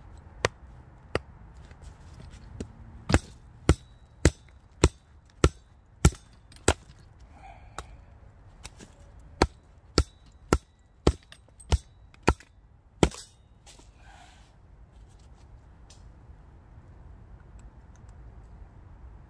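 Batoning firewood: a wooden stick knocks sharply on the spine of a large fixed-blade knife, driving it down through small logs to split them. About fifteen knocks, a few scattered at first, then a steady run of roughly two a second that stops a little over halfway through.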